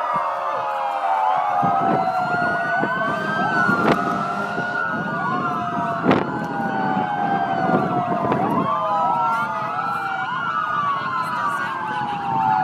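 Several emergency-vehicle sirens wail at once, their pitches rising and falling out of step with each other as a convoy of police cars and a fire truck approaches. A couple of sharp knocks stand out about a third and halfway through.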